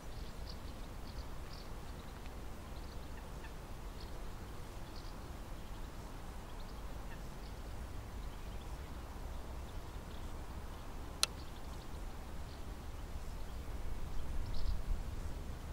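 Outdoor lineside ambience: a steady low rumble with faint, scattered bird chirps, and a single sharp click about eleven seconds in.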